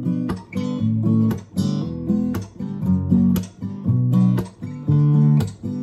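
Acoustic guitar strummed in a steady rhythm of chords, each strum ringing on into the next.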